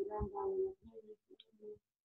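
A person's voice coming through a video call, trailing off under a second in, then faint broken fragments of sound.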